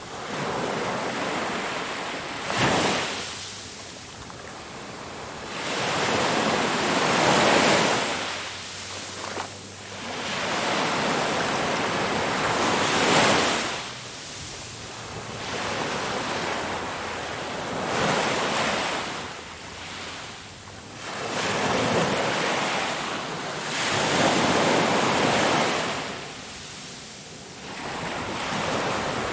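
Ocean waves breaking on a shore: the surf swells into a rush and draws back about every five seconds, with a sharp crash about three seconds in.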